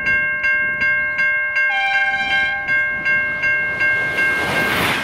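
Level crossing bell ringing steadily, about two and a half strikes a second. About two seconds in, an approaching V/Line VLocity diesel railcar sounds one horn blast of about a second. Near the end, the train's rumble swells as it nears the crossing.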